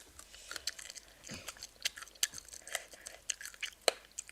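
Someone chewing crunchy spicy chicken feet close to the microphone: a run of sharp crunches and small wet clicks, several a second.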